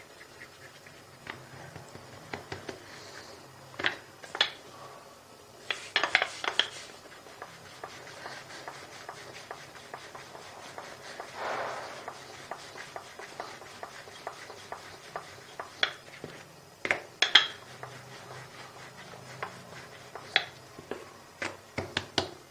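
Wooden rolling pin rolling out paratha dough, giving scattered sharp knocks and clacks in small clusters, with a soft rubbing swell about halfway through. The pin is a noisy one that makes a racket as it works.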